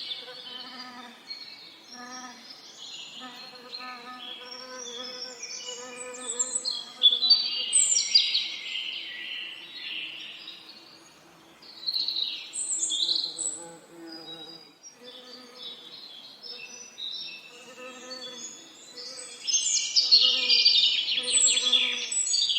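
Songbirds singing and chirping in quick, varied phrases, loudest in a bout about a third of the way in and again near the end. Under them, bees buzz in a low hum that swells and fades.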